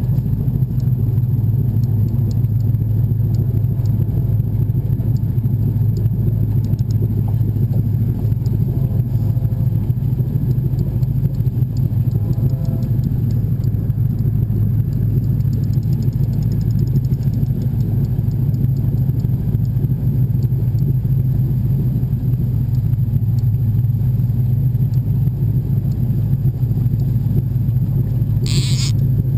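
Boat motor running steadily, a loud, even low rumble. A brief higher-pitched noise rises over it near the end.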